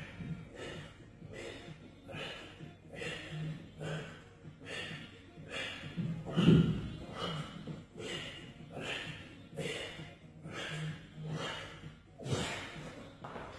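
A man breathing hard and rhythmically through repeated knee-tuck crunches, a short forceful breath about twice a second, in time with each repetition, now and then with a brief low grunt.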